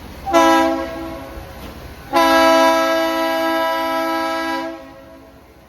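Diesel locomotive air horn sounding two blasts: a short one, then a long steady one of about two and a half seconds, with several chime tones at once.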